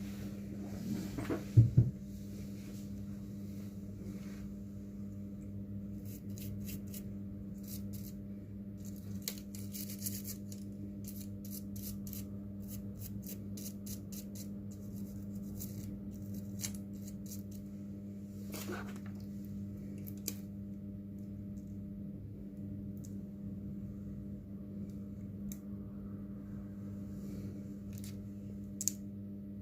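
Small clicks and taps of tools and parts being handled during a phone display repair, with a louder knock about a second and a half in, over a steady low hum.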